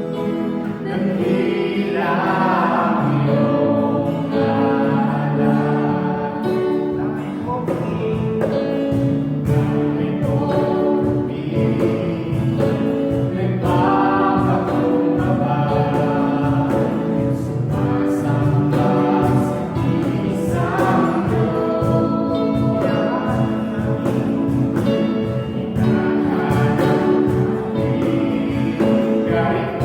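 Christian worship song sung by a group of voices over a steady instrumental beat.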